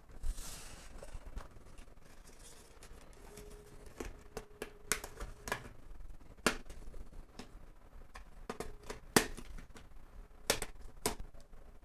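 Plastic retaining clips of a Dell Inspiron 15 7567 palm rest snapping loose as the palm rest is pried off by hand and with a pick. The clips give about seven sharp clicks at uneven intervals.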